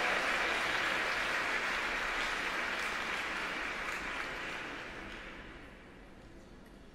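Arena crowd applauding, the clapping thinning out and dying away about five seconds in.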